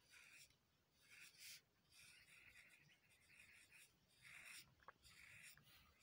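Faint scratching of a graphite pencil on paper, drawing small curls in a series of short strokes.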